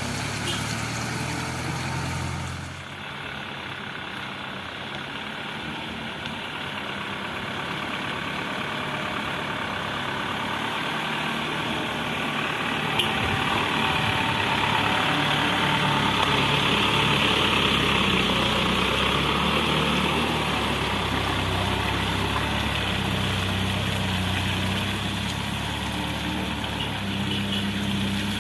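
Heavy diesel construction machinery engines running. The sound changes abruptly about three seconds in and grows louder toward the middle, with a single sharp click about halfway.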